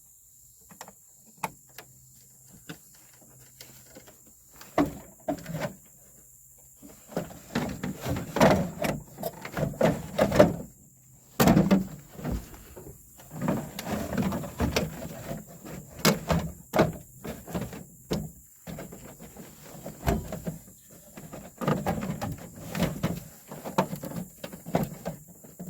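Plastic truck door trim panel being handled and fitted back onto the door: irregular knocks, clicks and rustling, sparse at first and then busy for most of the time.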